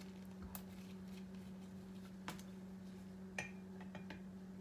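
A few sharp clicks and taps of plastic screw caps and sample vials being handled at a test-tube rack, over a steady low hum.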